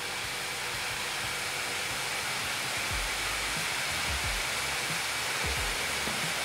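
MSI GT Titan gaming laptop's cooling fans running at full speed, blowing hard through the rear vents. It is a steady, loud rush of air with a faint high whine on top.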